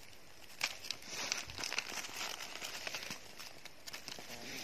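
Dry fallen leaves rustling and crinkling under a hand picking mushrooms from the leaf litter, with a few short, sharp crackles.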